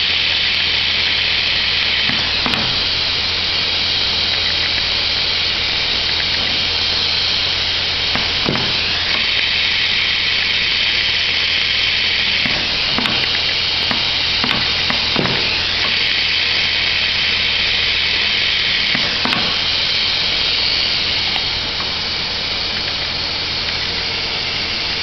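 Hot air seam welding machine running: a steady hiss of hot air over a low hum, with a few short clicks as the fabric is fed through. The hiss eases slightly near the end.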